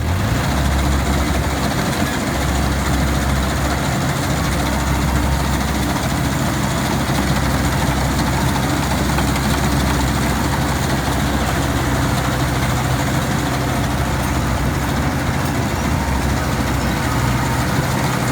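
Heavy diesel engine of farm machinery running steadily.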